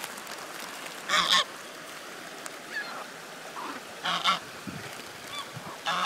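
A white domestic goose honks loudly twice, about three seconds apart, with softer calls in between. The uploader takes the calling for a goose that has lost its companion.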